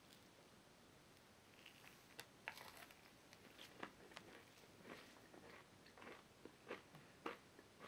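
Faint, irregular crunches and clicks of cornbread being bitten and chewed, starting about two seconds in.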